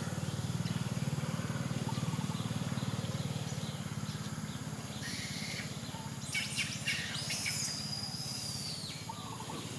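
A steady low hum throughout, with a few sharp bird chirps about six seconds in and then a long, high whistled bird call lasting over a second.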